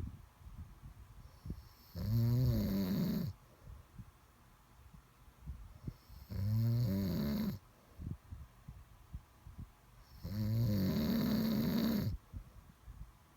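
Snoring in a slow, regular rhythm: three loud, low, rattling snores on the in-breath, about four seconds apart, the last one the longest, with quiet breathing between them.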